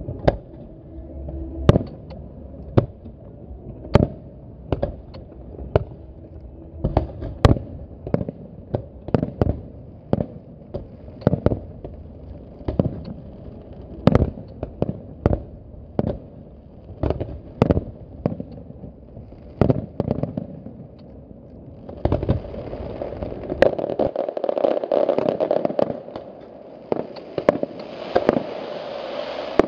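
Aerial fireworks shells bursting in sharp, irregular bangs, about one or two a second. About two-thirds of the way through, a dense, continuous crackle from many small bursts at once sets in under the bangs.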